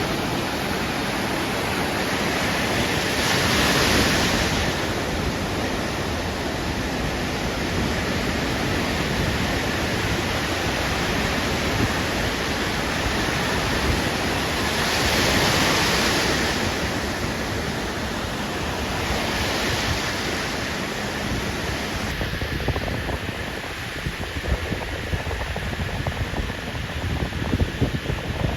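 Ocean surf washing on a beach, a steady rush that swells three times as waves break, with wind buffeting the microphone.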